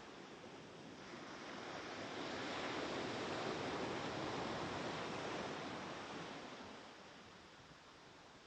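Waves on a beach: one wave swells in about two seconds in, breaks and washes out, fading away by about seven seconds, and the next starts to build near the end.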